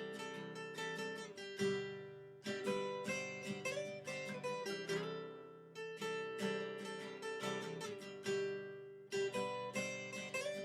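Background music: acoustic guitar played in plucked chords, the notes ringing and dying away.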